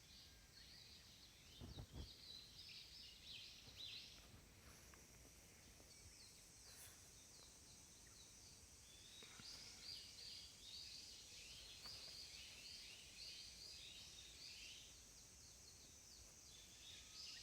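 Faint outdoor garden ambience: clusters of short, high, repeated chirps come and go over a steady high hiss, with a soft low thump about two seconds in.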